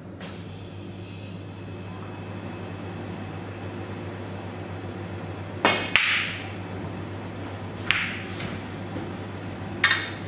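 Snooker balls on a full-size table: the cue tip strikes the cue ball about six seconds in, with a second sharp click right after, then two more hard clicks about two seconds apart as the ball runs the table and comes back.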